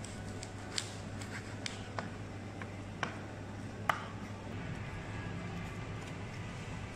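Kitchen knife slicing through soft cooked food and knocking on a wooden cutting board: about five sharp taps of the blade on the board in the first four seconds, the last one the loudest. A steady low hum runs underneath.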